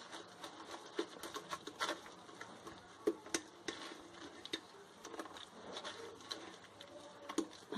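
Blended pineapple-peel pulp being pressed and worked in a plastic mesh strainer over an aluminium pot, with the juice dripping through. Faint, irregular small taps and patters.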